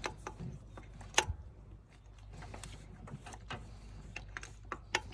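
Scattered light clicks and taps of hands and a spark plug against engine parts while the plug is worked back into its hole by feel, with one sharper knock about a second in.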